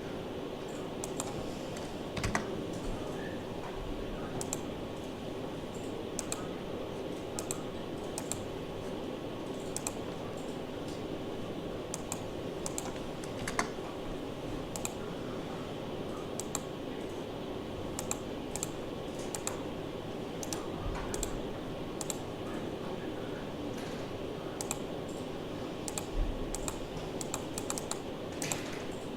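Irregular clicks of a computer keyboard and mouse being worked, a few each second, over a steady low hum.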